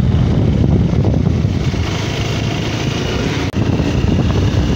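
Motorcycle riding along a road: a steady, loud rumble of engine and wind buffeting the microphone.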